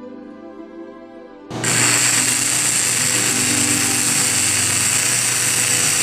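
Soft music with held tones, cut off about a second and a half in by a sudden loud, steady machine noise with a low hum under a strong hiss.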